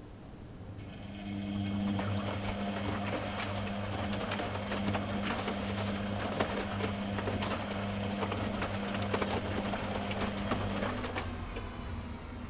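Privileg 370 S washing machine running: its motor starts about a second in with a steady low hum and a busy rattling, clicking noise over it, then stops about a second before the end.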